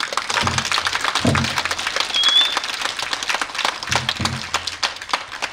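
Audience applauding, with a few low thumps beneath the clapping and a brief high whistle about two seconds in; the clapping thins out near the end.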